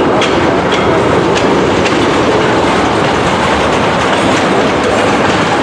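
CN freight train's cars rolling past, a loud steady rumble. Wheels click over the rail joints a few times in the first couple of seconds.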